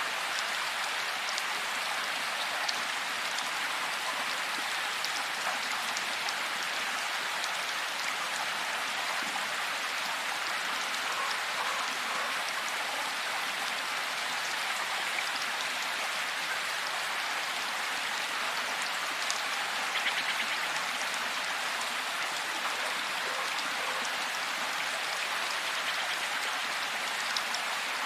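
Steady rain falling, a continuous hiss with scattered individual drops tapping, and a brief flurry of louder drops about twenty seconds in.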